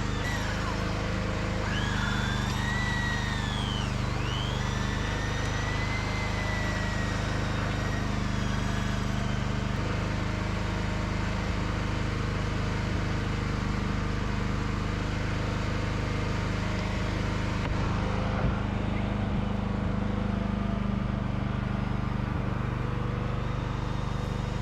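An engine running steadily at a constant speed, with a few high rising-and-falling whistles in the first eight seconds.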